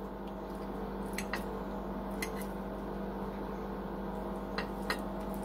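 A few faint clicks of a fork against a dinner plate, in pairs, as it works into cheesy pasta, over a steady electrical hum in the room.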